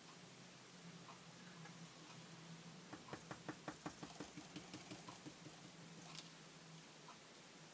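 Faint quick taps of a paint brush dabbing paint through a plastic stencil, about five a second for a couple of seconds midway, with a few scattered taps around them.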